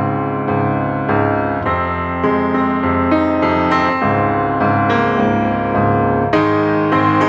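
Background music led by a piano-like keyboard, with notes struck at an even pace of about two a second.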